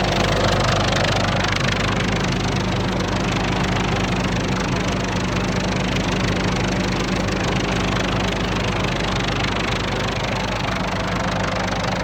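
Steady machinery hum with a constant low drone, under the dense hiss of heavy rain.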